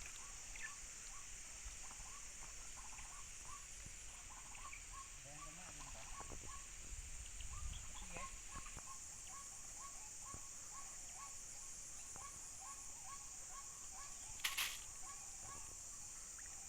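Faint outdoor ambience: a steady high-pitched insect drone, with a short animal call repeated two or three times a second, and one brief sharp noise near the end.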